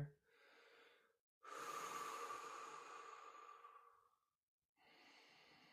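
A man breathing slowly and deeply while meditating: three soft breaths, the middle one longer and louder, like a sigh.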